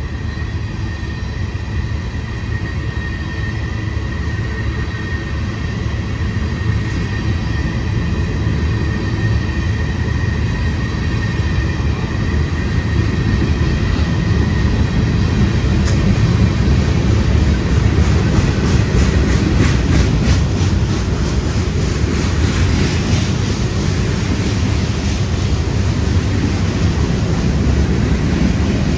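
Union Pacific manifest freight train's cars rolling past, a steady heavy rumble with a thin, high steady squeal from the wheels. From about two-thirds of the way through, a rhythmic clatter of wheels rolling over the rail joints joins in.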